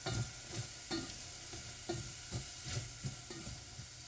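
Spoon stirring a pan of onions sautéing in butter with a mushroom and sour cream sauce, a light sizzle under short scraping strokes about two or three times a second.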